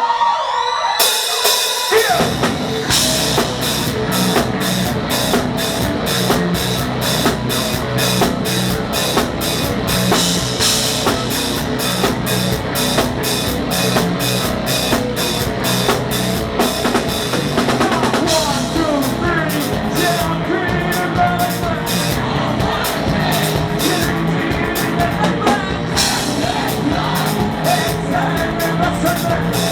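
Rock band playing live and loud, with the full drum kit coming in about two seconds in and a fast, even beat driving on under the guitars.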